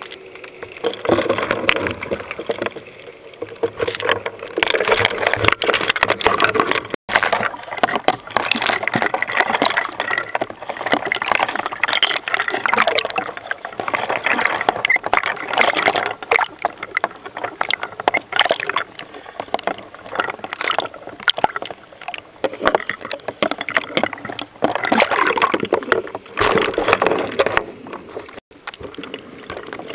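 Water sloshing, splashing and bubbling around a camera that moves in and out of the sea surface: a continuous, uneven rush of watery noise, broken abruptly twice.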